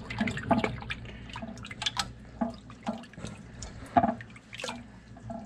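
Water sloshing and splashing in a plastic bowl as a hand swishes fish fillets around in it, in irregular splashes and drips, one of the loudest about four seconds in.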